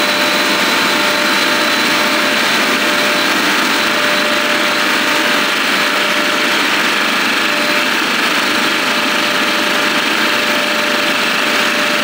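NAVAC NRDC4M four-cylinder refrigerant recovery machine running steadily while charging straight liquid refrigerant, with its main knob turned toward fast. It makes a little shudder, a noise that comes from taking liquid at full flow and stops when the knob is backed off slightly.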